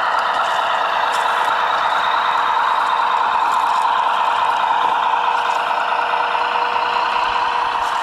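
Radio-controlled scale Peterbilt log truck driving over dirt: a steady mechanical whirring from its drive, slowly rising and falling, with a faint steady hum under it.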